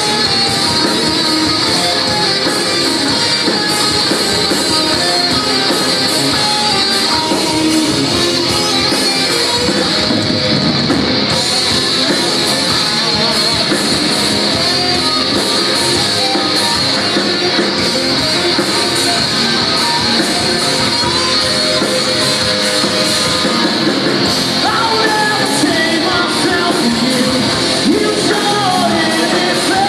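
Live rock band playing loud and without a break: electric guitars, bass guitar and drums, with a singer's voice over them.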